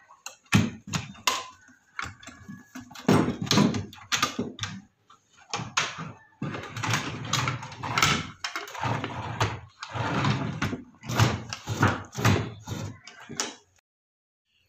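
Wooden cupboard drawer slid in and out over and over on its bottom-mounted roller runners, a string of short rolling rumbles and knocks as it travels and closes. It runs smoothly on a reused roller slider just fitted in place of a missing one.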